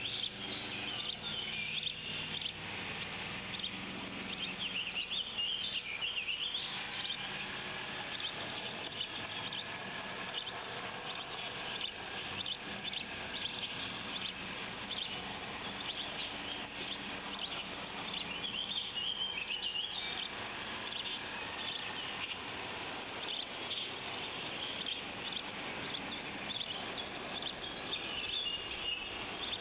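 Birds chirping and singing now and then over a steady background hiss.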